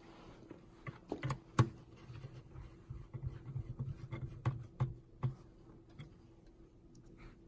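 Light clicks and knocks of small parts and plastic casing being handled while a point-of-sale terminal is taken apart, with one sharper knock about a second and a half in and scattered taps that stop a little after five seconds in.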